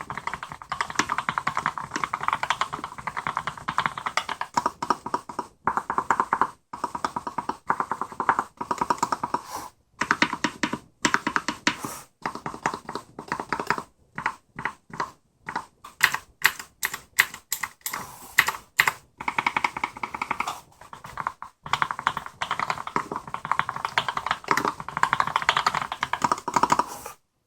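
Typing on a B.face custom keyboard with lubed Gateron MX Black linear switches in a stainless steel plate. Fast runs of keystrokes with brief pauses, slowing to separate single presses in the middle, then fast typing again that stops just before the end.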